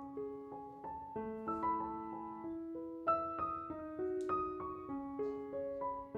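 Background piano music: a gentle melody of notes changing every half second or so over held chords.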